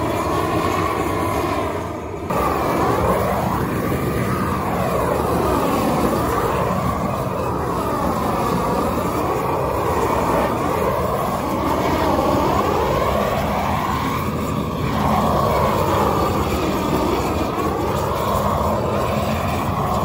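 Handheld gas torch flame burning loudly and steadily as it chars the surface of a log beehive, its tone sweeping up and down over and over as the flame is moved across the wood. The noise dips briefly about two seconds in.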